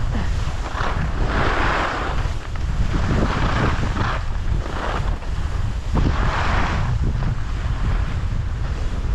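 Wind buffeting the camera microphone: a constant heavy low rumble, with three louder surges of hiss.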